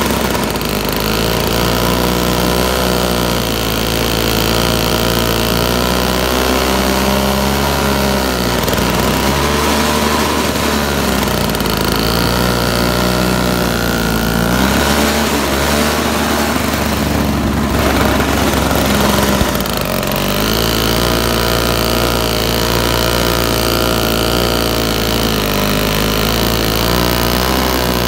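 Snapper 3200 single-stage snowblower's 3 HP Tecumseh engine running under load as it augers through deep snow and throws it. The engine note sags and recovers several times as it digs in, with a rougher stretch past the middle.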